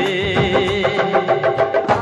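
Bollywood film song music: a held melody note wavering in pitch over a steady rhythmic beat, between sung lines.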